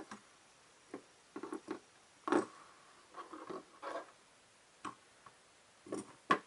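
Soft, irregular clicks and rustles of paracord and a plastic fidget spinner being handled, the cord sliding through the spinner's bearing; the loudest click comes about two and a half seconds in.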